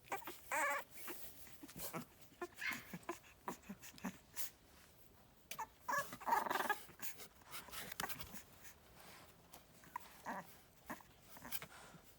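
Boston Terrier puppies crying in short, high cries, the longest about six seconds in, with light clicks between.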